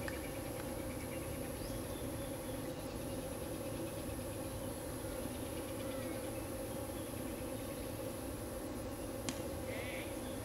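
A steady droning hum with a single sharp crack about nine seconds in: a cricket bat striking the ball.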